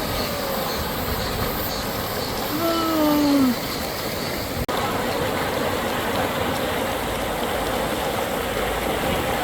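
Mountain stream water rushing steadily over rocks. About two and a half seconds in, a person's voice gives one short cry that falls in pitch.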